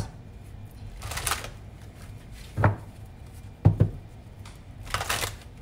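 A tarot deck being shuffled and handled: two brief papery swishes of cards, about a second in and again near the end, with a few soft knocks in between.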